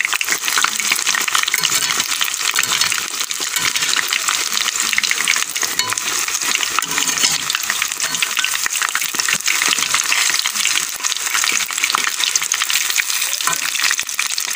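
Gram-flour-battered chicken and bottle-gourd-leaf fritters deep-frying in hot oil in a karahi: a steady crackling sizzle, with a spatula stirring and turning the fritters in the oil.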